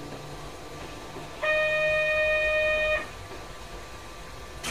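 Steady running noise inside a narrow-gauge train car. About a second and a half in, a single loud held electronic tone with overtones sounds for about a second and a half, and a sharp click comes at the very end.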